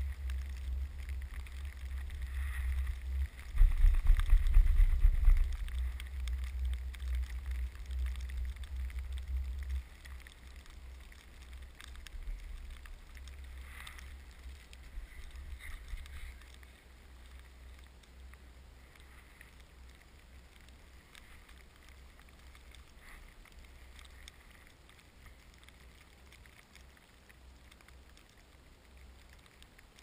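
Wind buffeting the GoPro's microphone, a low rumble that is strongest a few seconds in and dies down after about ten seconds, then again around sixteen seconds. Scattered faint ticks of falling snow hitting the camera are heard over it.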